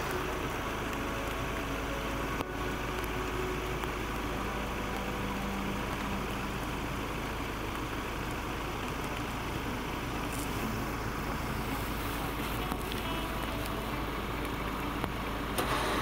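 An engine running steadily, with a brief break in the sound about two and a half seconds in.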